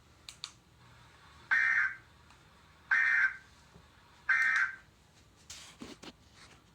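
Emergency Alert System end-of-message data tones: three short, identical screeching bursts of SAME digital code, about a second and a half apart, signalling the end of the alert. A few faint clicks come before and after them.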